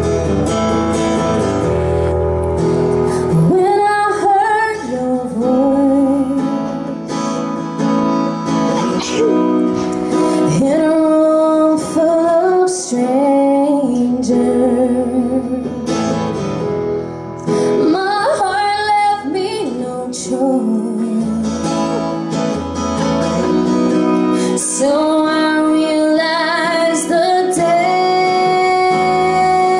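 A woman sings into a microphone, accompanied by an acoustic guitar. The guitar plays alone at first, and the voice comes in about three and a half seconds in.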